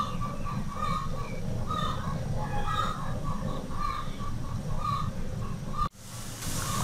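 A low steady noise with birds calling repeatedly in the background. About six seconds in, after an abrupt break, it changes to the steady hiss of cut okra sizzling as it fries in hot oil in a pan.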